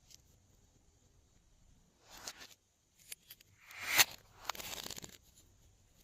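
Close-up handling sounds while slime is being mixed: a few short rustling, scraping bursts, with one sharp click about four seconds in.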